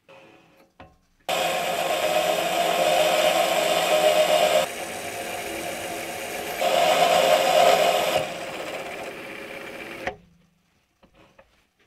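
Mini lathe running with a steady machine whine while a parting blade cuts off a thin steel ring. It starts suddenly, is louder in two stretches, and stops about ten seconds in.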